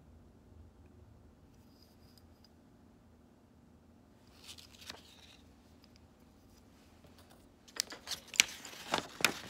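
Faint room hum, then a soft brief rustle a little before halfway as the clear jelly nail-stamping stamper is pressed onto paper. Near the end comes a loud run of crisp rustles and clicks as a sheet of paper is handled.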